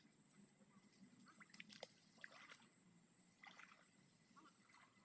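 Near silence by the water, with a few faint, short, scattered noises about one and a half to two and a half seconds in and again near the end.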